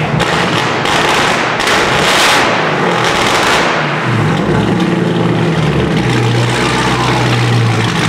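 A high-powered drag car's engine revving hard and loud, then dropping back to a steady idle about four seconds in.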